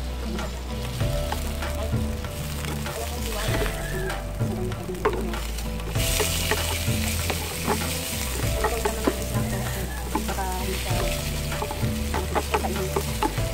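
Whole octopus and chopped vegetables sizzling as they fry in a pan, stirred, with scattered clicks and scrapes. The sizzle gets louder and hissier about six seconds in.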